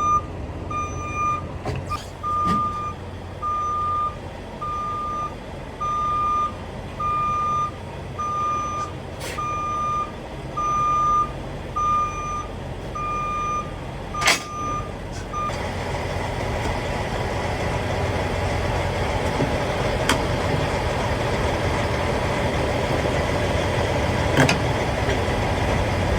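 Semi truck's backup alarm beeping steadily, a little more than once a second, as the tractor reverses under a trailer to couple up. A sharp knock comes just before the beeping stops about halfway through, and the truck's diesel engine then runs on, slowly growing louder.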